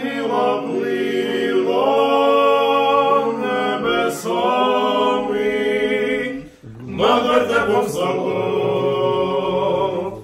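Male vocal quartet singing a Ukrainian Christmas carol (koliadka) a cappella in close harmony, a low voice holding steady notes under the moving upper parts. The singing breaks briefly for a breath about six and a half seconds in, then goes on.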